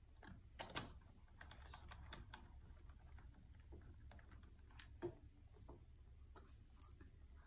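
Faint clicks and taps of a small screwdriver and fingers working on a laptop's plastic bottom case and its screws, with sharper clicks about a second in and again around five seconds in.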